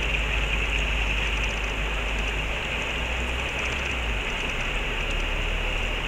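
Steady rushing of stream water flowing over rocks, a constant hiss-like noise without breaks.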